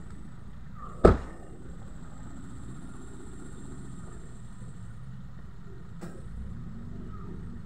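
Car engine idling: a steady low rumble, with one sharp, loud knock about a second in and a fainter click near six seconds.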